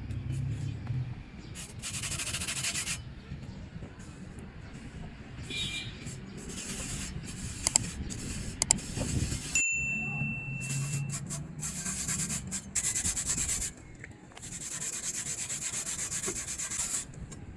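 Abrasive scrubbing on the rusty steel blade of an old cleaver, in repeated rubbing strokes that come and go in several stretches. About ten seconds in there is a sudden break, and a brief steady high tone follows.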